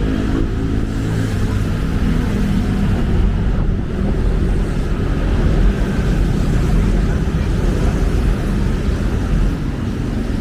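Steady, loud rumble of city road traffic: car and other vehicle engines running close by.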